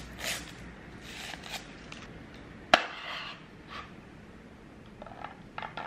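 Rustling of a plastic straw's wrapper, then one sharp pop as the straw is stabbed through the sealed film lid of a bubble tea cup, followed by soft sipping through the straw.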